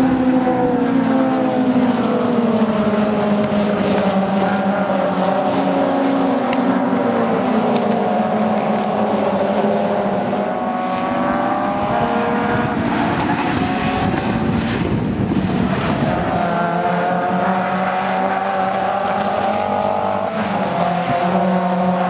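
Caterham Seven race cars' four-cylinder engines running hard as a pack goes through a corner. Several engines overlap, their pitch rising and falling with revs and gear changes. About two-thirds of the way through the engine notes thin out briefly, then another engine note climbs again.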